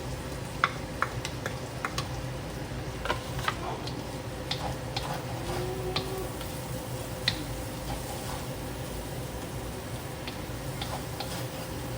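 Metal spatula clicking and scraping against a hot wok while stir-frying seasoned beef. The clicks are irregular and sharp, a few with a brief ringing tone, over a steady low hum.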